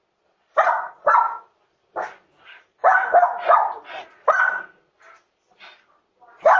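A dog barking over and over, a quick irregular string of about a dozen short, loud barks with brief pauses between them.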